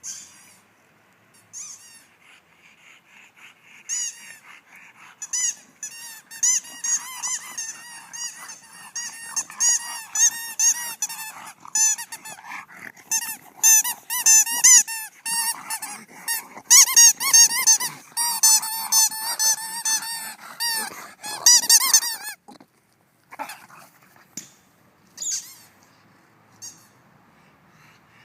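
Rubber squeaky dog toy squeaked over and over as a bulldog chews it, in quick uneven runs of short high squeaks that stop abruptly, with only a few stray squeaks near the end.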